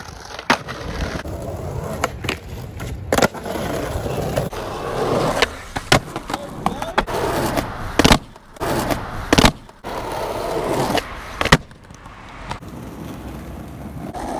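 Skateboard wheels rolling on concrete and paving, broken by a series of sharp clacks as the board's tail pops and the board slaps down on landings.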